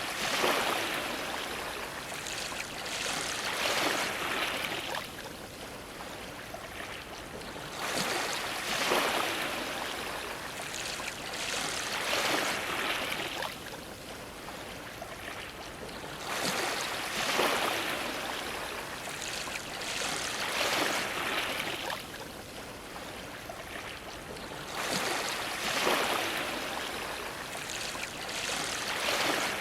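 Ocean waves washing and splashing against a dock, coming in repeated surges of rushing water every few seconds.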